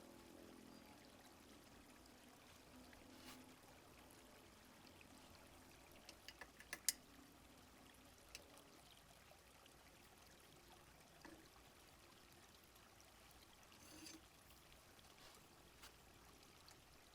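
Faint, steady sound of a small stream flowing, from a river ambiance track. About six to seven seconds in comes a quick run of small sharp clicks, the last one the loudest, with a few single clicks later.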